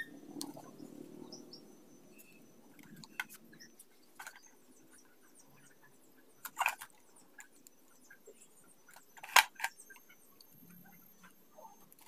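Utility knife cutting and scraping into a plastic electrical junction box and PVC conduit: faint scraping and clicks, with a few sharp cracks of the plastic, the loudest about nine seconds in.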